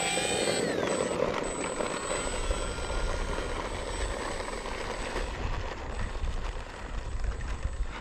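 E-flite P-39 radio-control plane's electric motor and propeller running at high throttle on the takeoff roll: a steady whine that levels off just after spooling up, then slowly grows fainter as the plane runs away down the runway.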